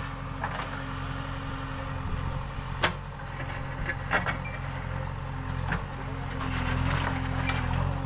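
JCB 3DX backhoe loader's diesel engine running steadily while the backhoe arm digs, with a few sharp knocks, the loudest about three seconds in. The engine grows louder from about six and a half seconds in.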